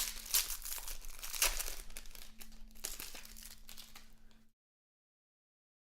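Trading card pack wrapper and cards rustling and crinkling as they are handled, with irregular crackles, cutting off abruptly to dead silence about four and a half seconds in.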